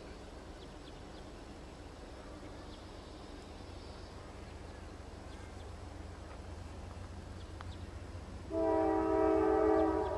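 GE D9-40CW diesel locomotives rumbling low and steady as they approach, slowly growing louder. Near the end the lead locomotive's air horn sounds a loud, steady multi-note chord.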